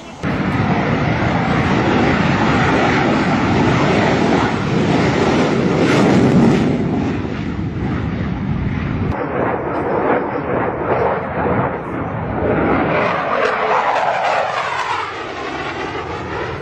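Loud rushing roar of aircraft, starting abruptly and easing after about nine seconds, with a sweeping, phasing quality near the end.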